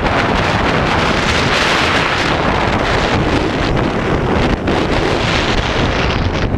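Heavy wind buffeting the microphone of a camera carried by a skier moving fast down a race course, mixed with the hiss and scrape of skis on hard-packed snow.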